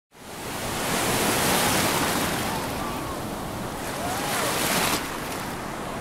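A rushing, surf-like noise swells in over the first second, rises again and drops off suddenly about five seconds in. Faint gliding whistles sound in the middle.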